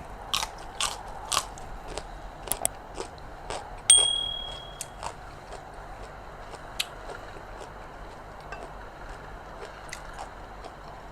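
A person chewing and crunching food close to the microphone, with a quick run of crunches at first and sparser chewing later. About four seconds in comes one sharp clink with a brief ringing tone.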